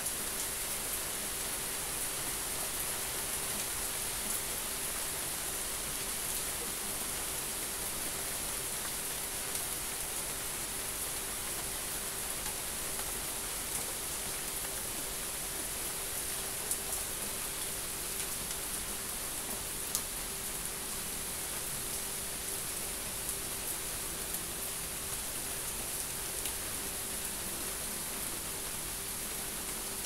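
Steady rain falling, an even hiss with scattered small drop ticks.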